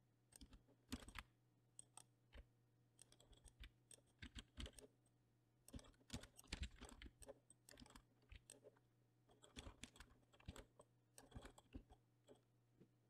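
Faint, irregular clicking of computer keyboard keys and a mouse as shortcuts are pressed, over a low steady hum.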